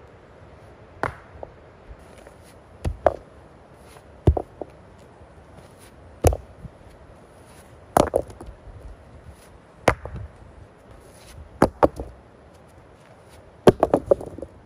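Rounded creek stones being set into a foundation trench: sharp stone-on-stone knocks every second or two, with a quick cluster of knocks near the end.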